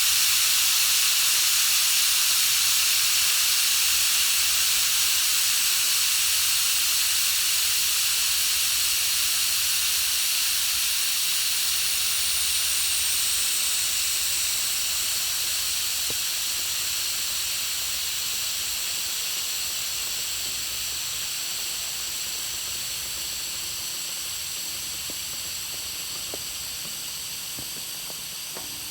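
Air rushing out of a 39.5x13.5 Interco IROK off-road tire's valve stem with the valve core removed. It makes a steady hiss that slowly grows quieter as the tire deflates from 8 psi toward empty.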